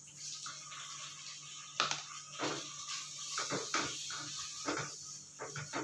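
Raw shrimp sizzling in hot oil in a pan. From about two seconds in, a wooden spatula knocks and scrapes against the pan several times as the shrimp are stirred.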